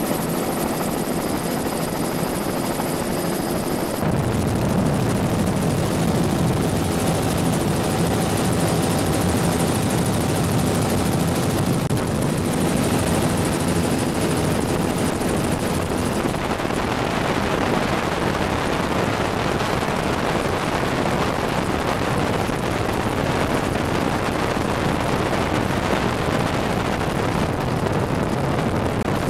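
Bell 206 JetRanger helicopter in flight, heard from the front seat with the doors off: steady, loud rotor and turbine noise. The character of the noise shifts a little a few seconds in and again about halfway through, turning more hissy in the second half.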